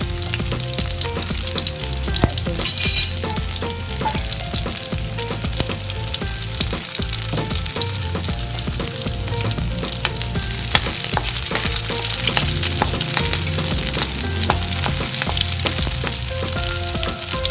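Onion sizzling in hot oil in a pan, with the steady hiss of frying broken by frequent light clicks and scrapes of a utensil stirring against the pan.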